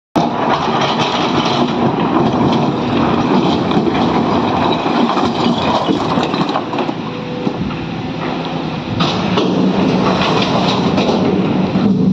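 SANY excavator's diesel engine running under load while rock and soil clatter heavily into a Tata Prima tipper's steel bed, with a dense rattle throughout and the engine note steadying about three-quarters of the way through.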